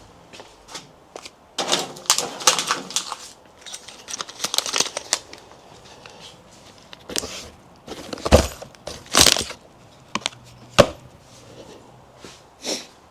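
Rustling and handling noises in two stretches, then four separate sharp knocks, like objects being set down or bumped.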